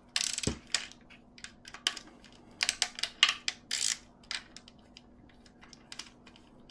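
Small plastic parts and screws of an RC car being handled during a teardown: a string of sharp clicks and rattles, busiest near the start and about halfway through, then sparser.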